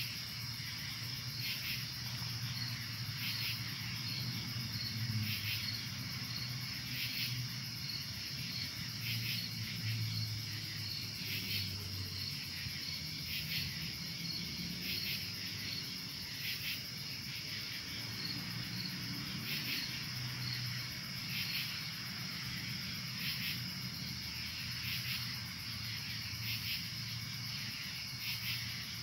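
A chorus of crickets and other night insects: a steady high trill, with a pulsed call repeating about every two seconds, over a faint low hum.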